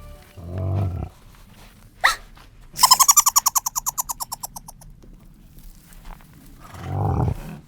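Camel groaning twice, low and short, about half a second in and again near the end. Between the groans there is a sharp rising squeak, then a fast rattling trill of about ten pulses a second that fades out over two seconds.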